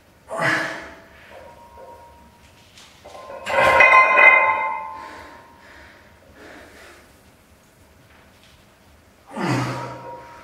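Loaded barbell clanking down onto metal jack stands about three and a half seconds in, its iron plates ringing for a second or so, with shorter clanks just after the start and near the end as the bar is lifted and moved.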